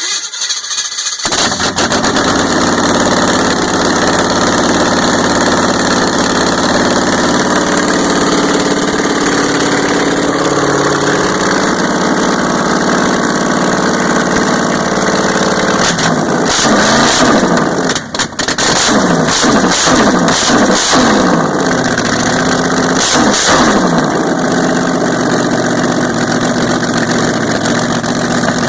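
A 400-cubic-inch V8 cranks briefly and catches on its first start after a frame swap, then runs loud and steady. About halfway through, the throttle is blipped several times in quick succession, and the engine settles back to a steady idle.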